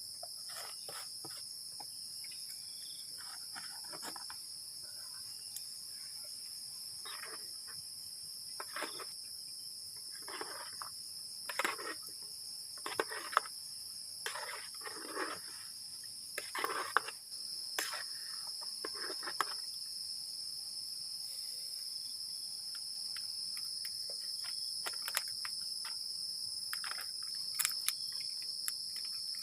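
Steady high-pitched chorus of crickets and other insects. Through the middle it is broken by a scattered series of short knocks and clatters.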